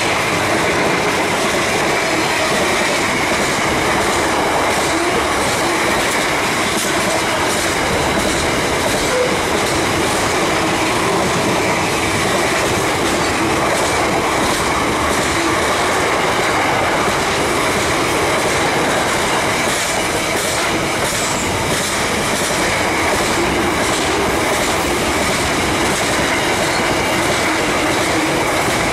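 Container freight train wagons rolling past close by: a steady, loud rumble and rattle of steel wheels on rail, with repeated clicks as the wheels cross rail joints and a faint steady high ring above it.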